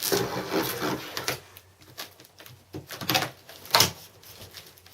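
A large cardboard box being handled and opened: a rustling, scraping stretch at first, then a few sharp knocks and scrapes of cardboard, the loudest near the end.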